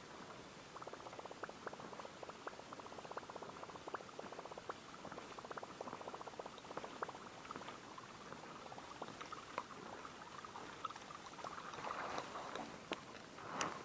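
Spinning reel being cranked to bring in a lure: a faint, rapid, uneven ticking from the reel, somewhat louder near the end.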